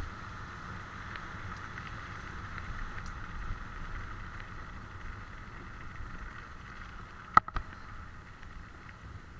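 Tyres rolling fast over a wet gravel and mud track, a steady rushing noise, with two sharp knocks about seven and a half seconds in, the first the louder.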